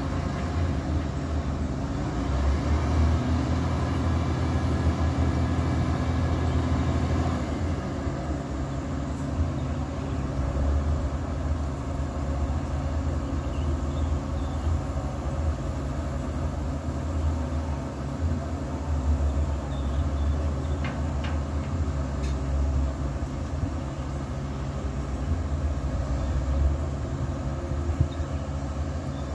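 Heavy machinery engine running steadily, a continuous low drone, with a few faint clicks about two-thirds of the way through.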